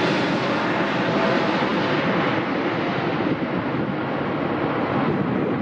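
Widebody jet airliner's engines, a steady broad roar that slowly loses its high hiss as the aircraft moves away.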